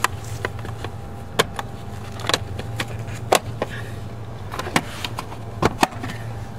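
Sharp plastic clicks and knocks as the gray plastic front cover of a Hunter XCore sprinkler controller is fitted back on and handled with gloved hands, about seven in all, scattered and irregular. A steady low hum runs underneath.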